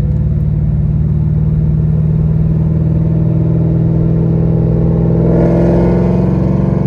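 2002 Pontiac Firehawk's LS1 V8 exhaust droning steadily, heard from inside the cabin while driving, its pitch creeping slightly up. About five seconds in, the header exhaust cutouts open and the sound gets louder with a harsher, brighter edge.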